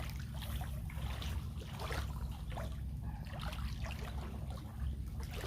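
Lake water splashing and lapping in irregular small bursts over a steady low rumble.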